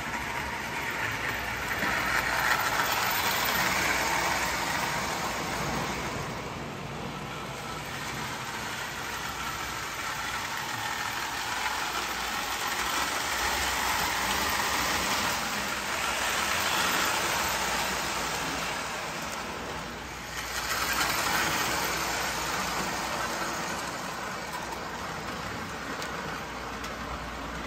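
Marx 1829 plastic Hudson steam locomotive and its passenger cars running laps on three-rail tinplate track, a steady motor-and-wheel rumble. It grows louder each time the train passes close, about 3, 16 and 21 seconds in.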